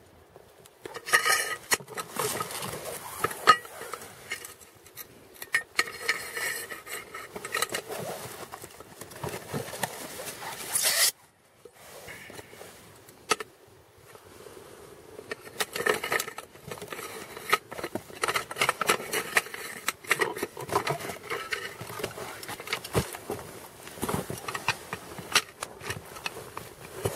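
Interlocking aluminum traction plates clinking and scraping against each other as they are handled, with plastic wrapping rustling. The clatter breaks off abruptly about eleven seconds in, then the handling noise resumes.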